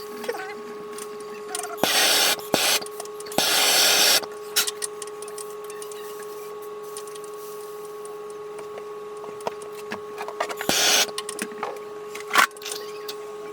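Three short bursts of rasping noise, two of them a few seconds in and one near the end, with scattered clicks and knocks over a steady electrical hum.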